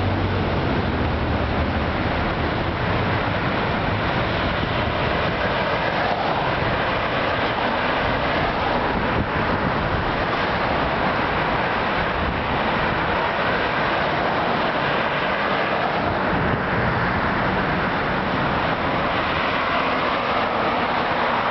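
Road traffic at an intersection: cars driving past close by, a steady wash of engine and tyre noise.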